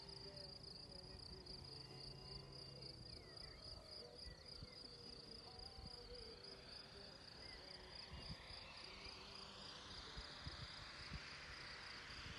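Faint insects chirping in a steady, pulsing trill. Over the second half a model Piper airplane's motor and propeller come in and grow steadily louder as the plane approaches low.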